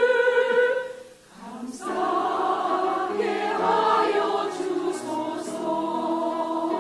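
Church choir singing a hymn. A held chord breaks off about a second in, and after a brief pause the choir comes back in with sustained chords.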